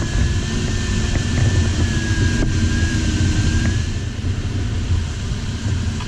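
Steady airflow rushing over the LS4 glider's cockpit canopy in flight, heaviest in the low end. A thin high tone wavers slightly over it and stops about four seconds in.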